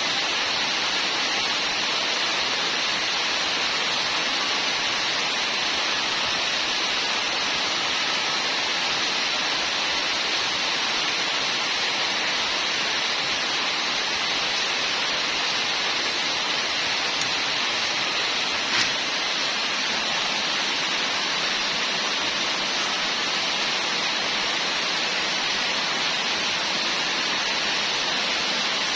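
Steady hissing noise that holds an even level throughout, with one brief click about two-thirds of the way through.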